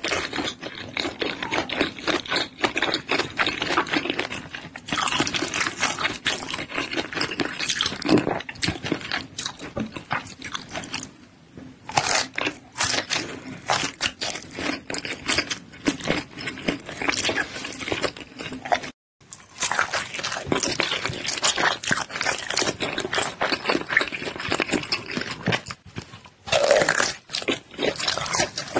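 Close-miked biting and chewing of a smoked sausage: a dense, continuous run of wet crackles and crunches from the mouth. There is a brief break about two-thirds of the way through, then the chewing carries on.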